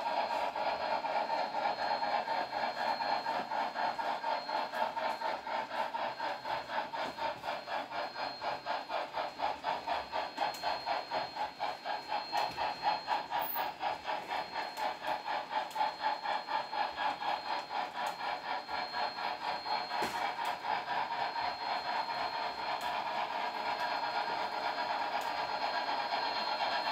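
Model trains running on the layout's track: a steady mechanical whirr with a fast, regular clicking pulse through it.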